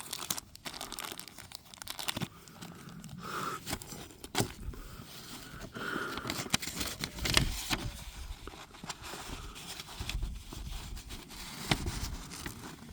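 Handling noise: a paper target rustling and crinkling, with scattered clicks and scrapes as it is handled and a scoring checker is got out.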